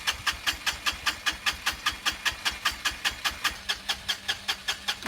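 1985 Honda Elite 250's single-cylinder engine being cranked on its electric starter, a steady chugging of about six compression strokes a second over the starter motor's hum, without firing.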